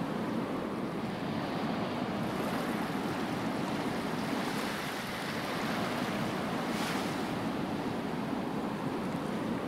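Steady wash of ocean surf, with one short click about seven seconds in.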